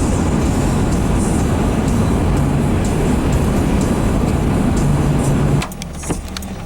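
Loud, steady rushing noise of a car heard from inside, wind and road or engine rush, which drops off abruptly about five and a half seconds in.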